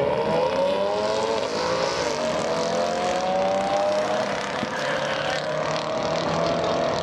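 A Ford Focus RS's turbocharged four-cylinder and a Ford Mustang GT's 5.0 V8 accelerating flat out from a drag-strip launch, the engine note climbing in pitch and dropping back at each gear shift, several times.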